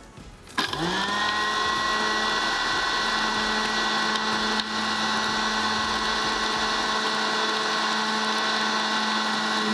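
Small electric food chopper grinding cookies into fine crumbs. Its motor spins up about half a second in, runs at a steady whine, and starts to wind down right at the end.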